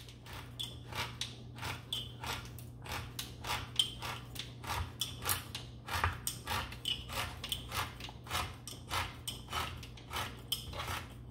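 Manual can opener cutting around the end of a tin of cheese to take off the lid: an even run of short metallic clicks and scrapes, about three to four a second, as the handle is cranked.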